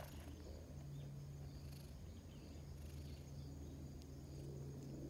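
Black cat purring while being stroked: a steady low purr that dips briefly with each breath, about every two seconds, with insects chirping faintly in the background.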